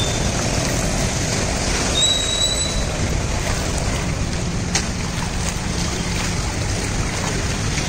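Steady rushing noise of a flooded city street, with water and traffic. A brief high whistle-like tone sounds about two seconds in.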